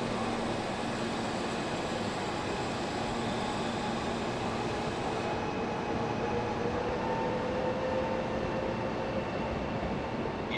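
Electric train running, its motor whine rising slowly and steadily in pitch as it gathers speed.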